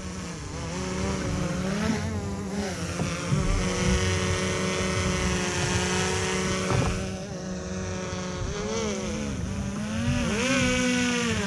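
DJI Mavic Pro quadcopter's propellers whining as it hovers and descends overhead for a hand catch, the pitch shifting up and down with throttle changes. Near the end the whine rises sharply, then drops, as the drone is grabbed by hand. A low rumble runs underneath.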